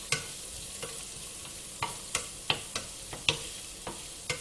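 Chopped onion and asparagus frying gently in butter in a nonstick frying pan with a steady soft sizzle, stirred by hand; the utensil knocks lightly against the pan about ten times at uneven intervals.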